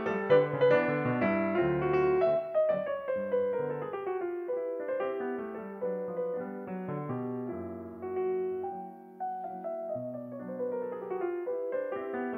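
Solo classical piano music played on a Fazioli grand piano. Fast runs sweep downward, a thinner, quieter passage comes around the middle, and rising runs build again near the end.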